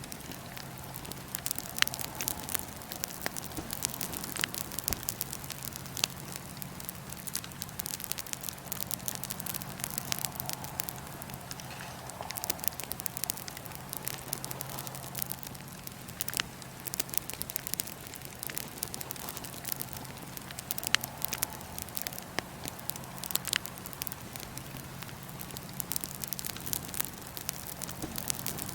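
Wood fire in a fire pit crackling steadily, with frequent sharp pops of varying loudness, over a low steady hum.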